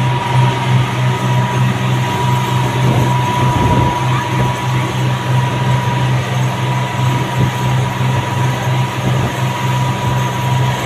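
Twin Honda 225 outboard motors running at speed: a steady, loud drone with a thin, constant whine, over the rush of the wake and wind.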